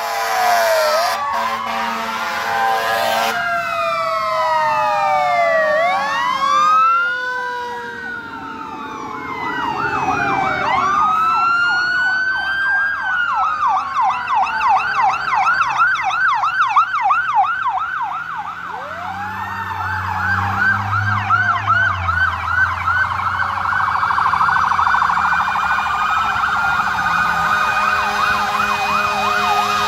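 Several emergency-vehicle sirens sounding together from passing fire trucks and police vehicles: overlapping wails rise and fall, and a fast yelp takes over from about ten seconds in. A long steady horn blast sounds for the first three seconds.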